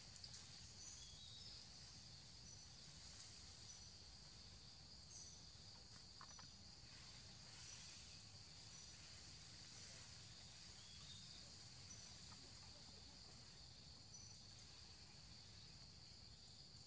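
Faint forest insect drone: a steady high-pitched buzz with short high chirps recurring every second or so, over a low rumble.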